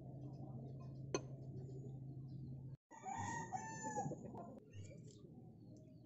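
A rooster crows once, a call of just over a second starting about three seconds in. Before it there is a low steady hum with one sharp click about a second in.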